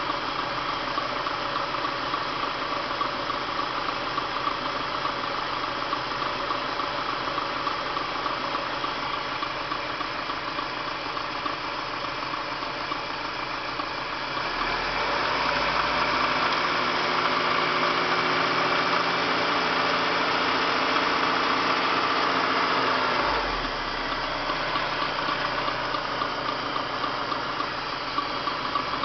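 BMW M43TU four-cylinder petrol engine knocking as it idles, then raised to a steady higher speed about halfway through and dropped back to idle about eight seconds later. The owner suspects the timing chain or a dead hydraulic lifter.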